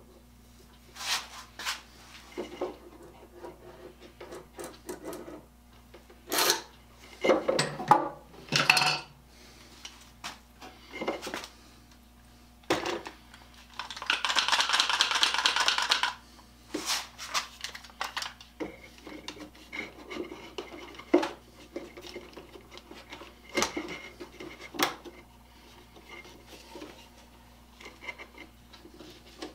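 Hand tools being handled and set down on a wooden workbench: scattered metal clinks and knocks, with a cluster of clattering about seven to nine seconds in. Around the middle comes a steady rasping scrape about two seconds long. Near the end a bar clamp is set and tightened across the work with a few light clicks.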